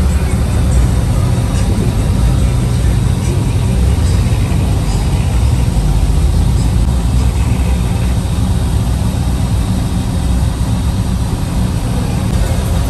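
Motor vehicle engine running with a steady low rumble.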